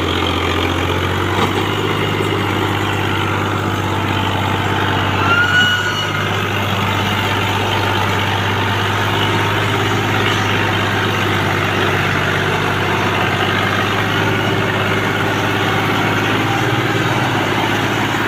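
Fiat 480 tractor's four-cylinder diesel engine running steadily at low pace under load, towing a trolley heaped with sugarcane.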